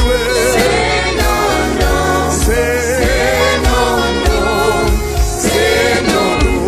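A live gospel band playing, with a lead singer's voice wavering in vibrato over keyboard, electric guitar, bass guitar and drum kit.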